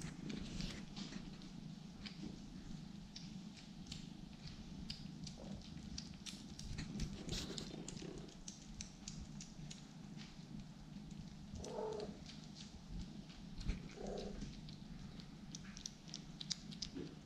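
Kittens eating wet cat food off a plate: a steady run of small wet smacking and licking clicks over a steady low purr. Two short cat calls come near the middle.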